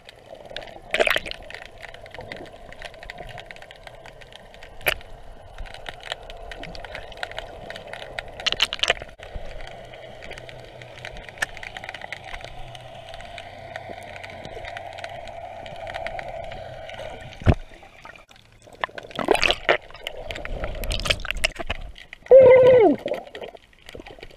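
Underwater sound as a submerged camera hears it: a steady muffled hum of water with scattered sharp clicks and knocks, and louder sloshing and bumps in the last few seconds.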